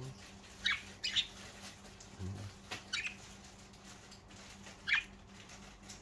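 Budgerigars chirping: several short, high chirps at irregular intervals, a second or two apart.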